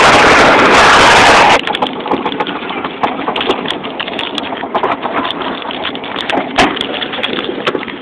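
Loud wind rushing over a phone microphone on a moving wooden roller coaster, cutting off suddenly about a second and a half in. It is followed by quieter, irregular clicking and rattling.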